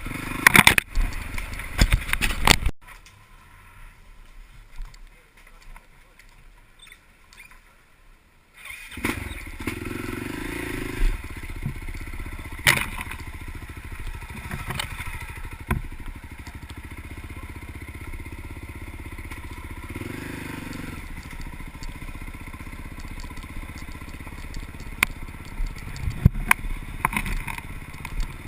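Off-road vehicle engine with loud clattering and knocks for the first couple of seconds, then much quieter for about six seconds. About nine seconds in the engine sound comes back suddenly and runs steadily, rising in revs now and then, with occasional sharp knocks.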